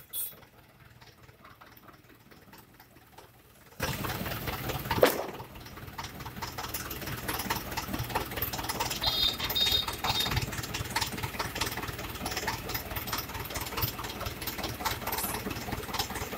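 Diesel tractor engine running steadily at idle, with many small ticks in its sound. It comes in suddenly about four seconds in, after a low hum, and a single sharp knock sounds about a second later.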